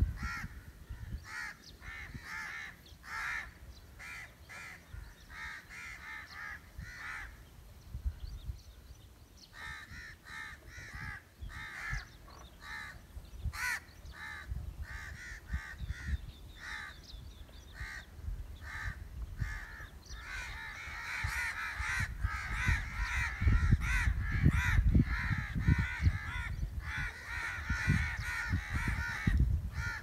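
Crows cawing over and over, the calls crowding into a dense, overlapping chorus about two-thirds of the way through, with wind buffeting the microphone in low rumbles.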